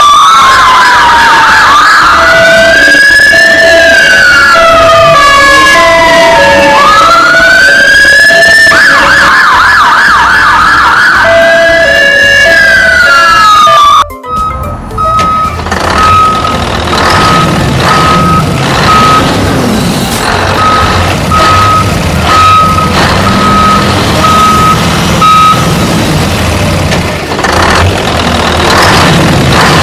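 Electronic siren wailing, sweeping up and down in pitch over and over with steady beeps beneath it, cutting off abruptly about halfway through. A repeated beeping tone follows over a busier mix of sounds.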